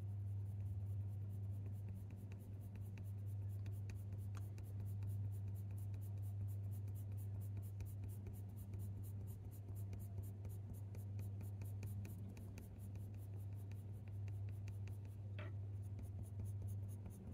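Faber-Castell Polychromos coloured pencil scratching on hot-press watercolour paper in quick short flicking strokes, several a second, over a steady low hum. There is a single small tap about a second before the end.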